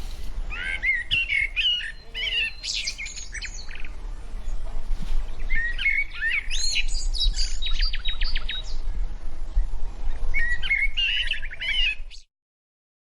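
Birds singing and chirping: varied whistled phrases and quick trills overlapping, cutting off abruptly about twelve seconds in.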